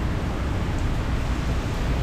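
Hurricane wind and heavy rain making a steady rushing noise, with wind rumbling on the microphone.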